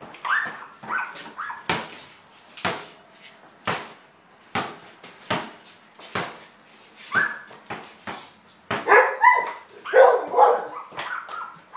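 Border collie barking and yipping in short bursts, with a loud flurry of barks near the end, over a basketball bouncing on a concrete garage floor about once a second.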